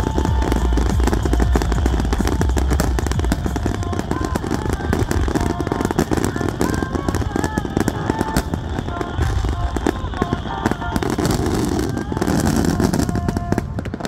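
Dense fireworks barrage, many shells bursting at once: continuous rapid bangs and crackling over deep, low booms.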